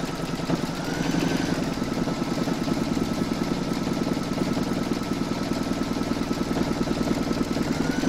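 Computerised embroidery machine stitching a placement outline through the hooped fabric, batting and stabilizer, the needle going at a fast, even rhythm. There is a short rising whine about a second in and again near the end.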